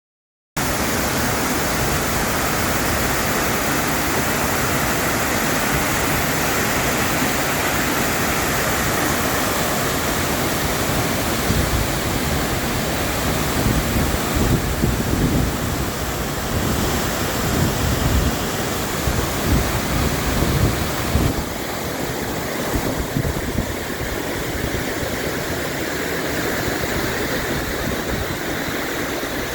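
A waterfall rushing, a steady, dense roar of falling water that starts abruptly about half a second in. Low, uneven buffeting swells through the middle.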